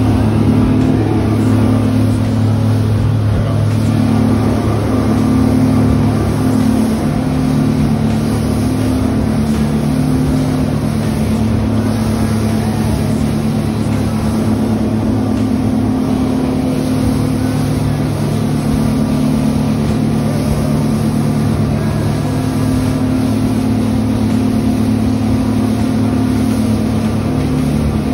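Fishing charter boat's engine running steadily, a constant low drone with the rush of the hull through the water.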